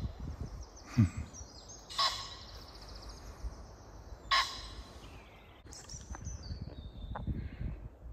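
Woodland birds: a short harsh call heard twice, about two and a half seconds apart, under thin high trilling song from small birds. A single dull thump about a second in is the loudest sound.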